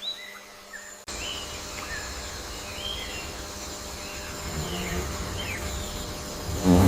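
Outdoor nature ambience with birds chirping in short calls over a steady hiss of background noise. The background changes abruptly about a second in, and a loud, low pitched call or voice starts just before the end.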